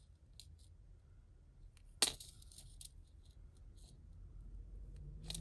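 Small metallic clicks and clinks of a thin chain and its pendant being handled in the fingers, with one sharper click about two seconds in followed by a quick cluster of lighter ones.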